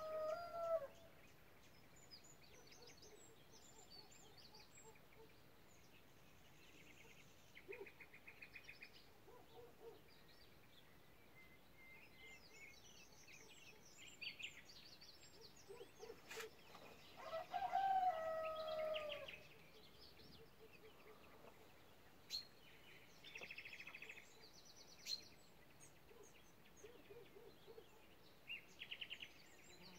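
A rooster crows once, a call of about two seconds a little past halfway, with the tail of another crow right at the start. Between the crows, small songbirds give short high chirps and quick rattling trills.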